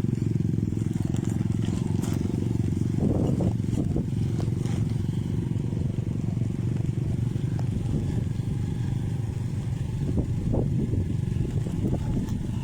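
Small engine running steadily at an even speed, a low drone with a fast pulse.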